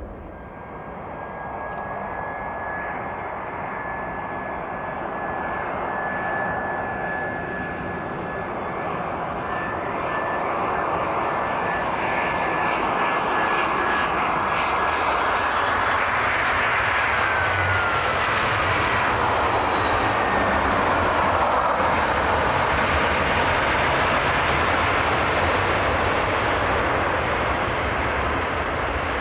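Arriving jet airliner passing by, its engine noise building up and holding loud. A steady high whine drops in pitch a little past halfway as the plane goes past.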